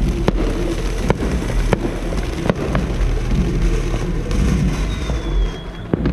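Fireworks going off: about five sharp bangs at irregular intervals over a steady background of rumble and crackle, with a thin whistle near the end.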